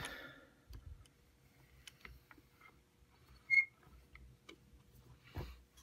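Small metal clicks and taps as a lock cylinder is handled and fitted in a vise, with one brief ringing ting about three and a half seconds in and a soft thump near the end.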